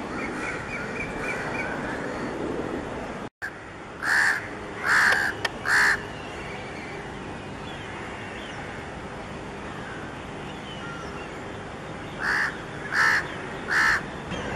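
Crows cawing: three loud caws about four seconds in and three more near the end, over a steady background hiss. The sound cuts out for an instant just before the first group.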